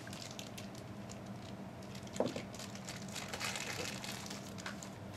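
Light rustling and crinkling of packaging being handled, with many small scattered clicks, over a low steady hum.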